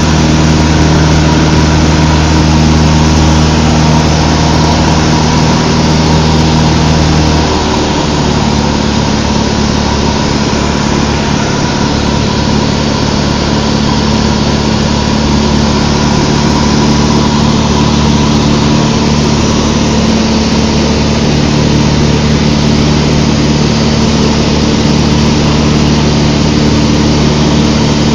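Cessna 152's four-cylinder Lycoming O-235 engine and propeller running steadily in flight. About seven seconds in, the engine note shifts and becomes slightly quieter, then holds steady.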